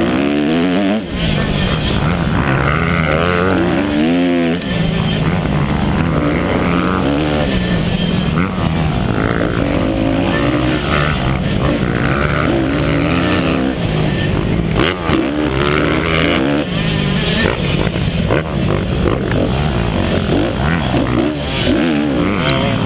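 Motocross bike engine at racing speed, revving hard, its pitch rising and falling again and again with throttle and gear changes, under a dense rush of wind and track noise.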